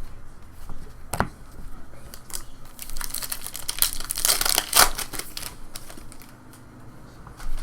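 Foil wrapper of a trading card pack crinkling and tearing as it is opened, in a dense run of crackles between about two and five seconds in, after a single sharp click.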